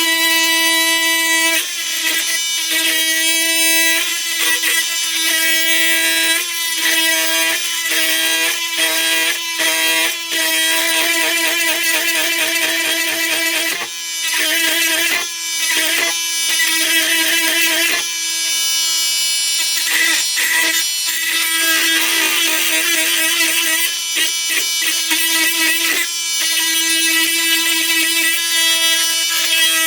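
Flex FX4111 cordless oscillating multi-tool running on high and cutting with a dull blade: a steady, high-pitched buzz that dips and breaks off briefly every second or two as the blade bites and chatters.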